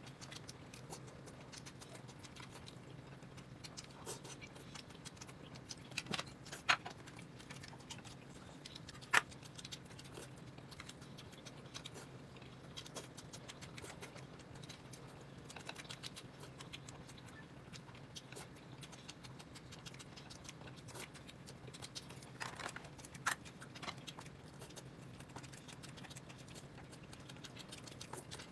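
Quiet eating at a table: scattered light clicks and taps of utensils against tableware, a few sharper ones, over a steady low hum.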